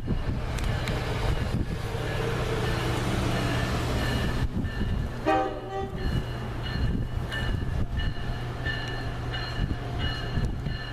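Amtrak electric passenger train rolling with a steady low hum, giving one short blast of its K5LA air horn about five seconds in. High-pitched wheel squeal comes and goes through the second half.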